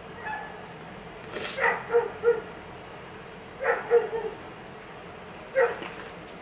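A dog barking: short barks in three bouts, about a second and a half in, near four seconds and near the end.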